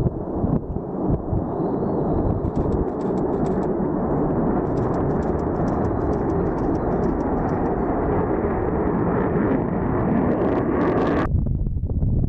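Military jet engine noise during takeoff: a loud, steady rumble and roar. About eleven seconds in it changes abruptly, losing most of its hiss.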